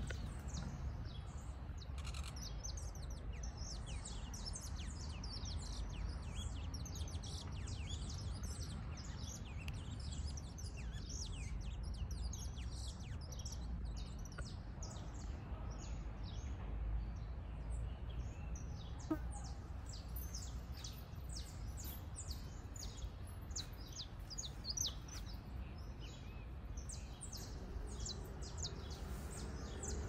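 Songbirds chirping in a tree: a fast, continuous stream of short high chirps, over a steady low rumble.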